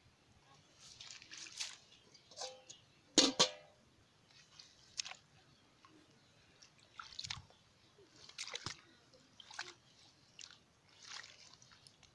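Hands squelching and splashing in shallow mud and water, in short wet bursts about once a second. The loudest comes about three seconds in.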